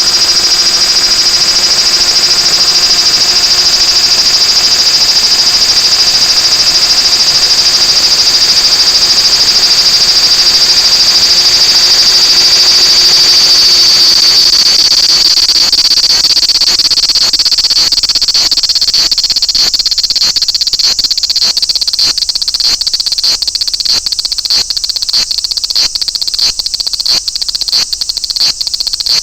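Large brown cicada (aburazemi, Graptopsaltria nigrofuscata) calling: one loud, steady, high-pitched buzz that about halfway through breaks up into a regular pulsing of about two pulses a second.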